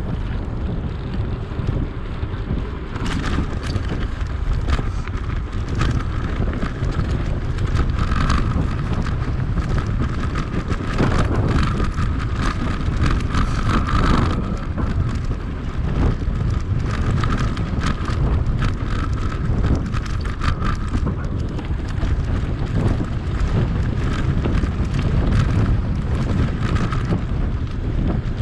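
Wind buffeting a GoPro's microphone while riding an electric bike, a steady rushing rumble with scattered knocks and rattles and a faint whine that comes and goes.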